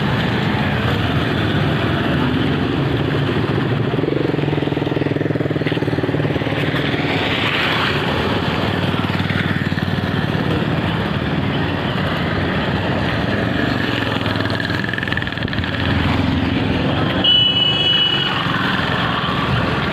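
Road traffic: motorcycle and other vehicle engines running and passing, with a short high-pitched beep, like a horn, near the end.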